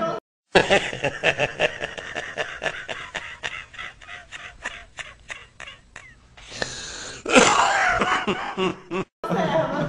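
An elderly man laughing hard: a long run of quick laughing gasps, about four or five a second, that slowly thin out, then a louder burst of laughter about seven seconds in.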